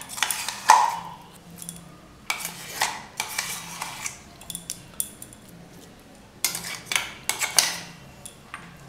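A metal spoon scraping and clinking against stainless steel utensils in three bouts of scrapes and knocks, as ground chicken paste is scraped into a steel bowl.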